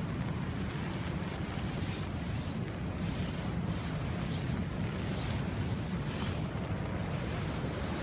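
Strong storm wind blowing over the microphone: a constant low rumble, with hissing gusts that rise and fall every second or so.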